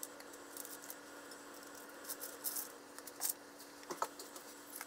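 Scattered light clicks, taps and crinkles of chopsticks and crisp fried tempura being laid onto paper on a bamboo tray, with a small dish set down. A faint steady hum runs underneath.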